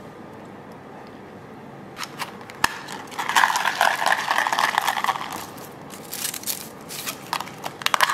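A few sharp plastic clicks, then ice cubes rattling hard in a plastic cup of iced coffee as it is shaken for about two seconds. Scattered clicks and taps follow near the end.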